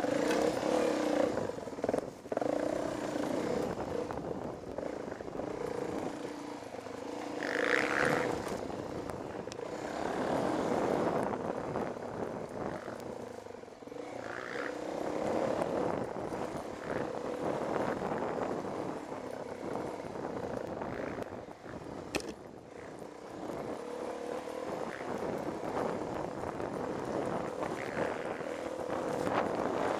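Dirt bike engine running as it rides a rough woodland trail, swelling and easing as the throttle opens and closes every few seconds, with wind and ground noise over it. A single sharp knock about two-thirds through.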